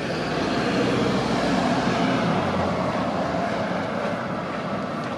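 Road traffic: a vehicle passing, a steady rushing noise that swells about a second in and then eases off.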